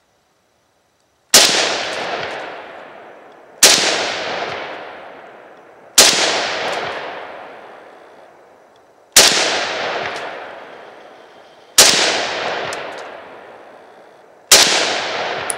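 A 1941 Tula SVT-40 semi-automatic rifle in 7.62x54R fired six times, a shot every two to three seconds, each crack followed by a long echoing decay.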